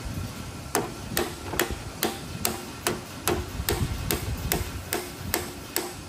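Steady, even tapping of a metal tool against a Honda CB450 carburetor's float bowl, about two and a half taps a second with a short ring after each, starting about a second in. The tapping is to loosen a float bowl that has been sealed on with silicone.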